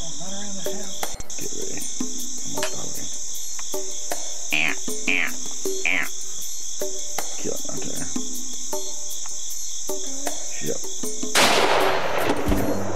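Steady chorus of crickets and other insects, with three short falling chirps around the middle. About eleven seconds in, a single loud gunshot rings out and dies away over about a second: a hunter's shot at a whitetail buck.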